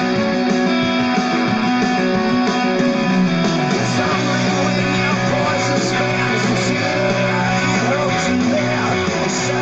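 Guitar-led song playing steadily through a small Monstercube Bullet Bluetooth speaker (two 3-watt drivers) during a sound test.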